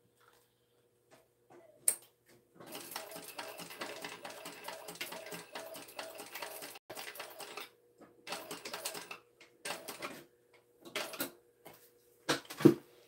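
TechSew 2750 Pro industrial walking-foot sewing machine stitching slowly while basting handles onto a tote, a clattering rhythm of about three stitches a second. It sews in one long run, then several short runs with pauses, and a louder thump comes near the end.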